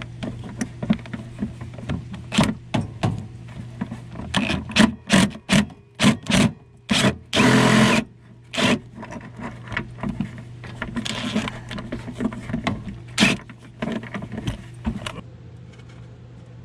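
Socket ratchet and wrench clicking and knocking against metal while working a hard-to-reach bolt, with a short run of fast ratcheting a little past halfway.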